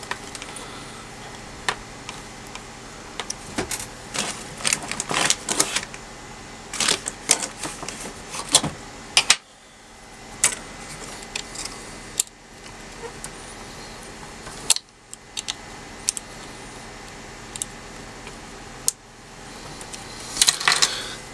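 Irregular light clicks and small rattles of hands handling small parts and wires on a charger's circuit board, coming in short clusters.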